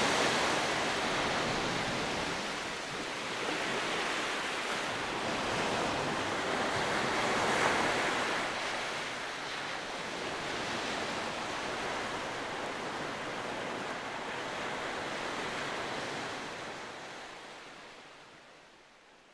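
Sea surf washing over a rocky shore, swelling and easing, then fading out over the last few seconds.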